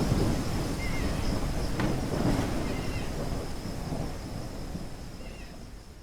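Low rumbling thunderstorm ambience with rain, slowly fading out. A few faint short chirps sound over it.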